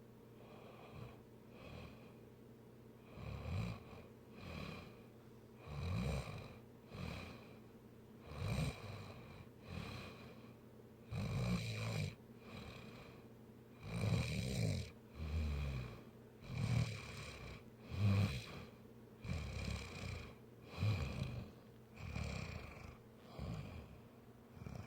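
Snoring: faint at first, then a low snore roughly every second from about three seconds in, uneven in strength.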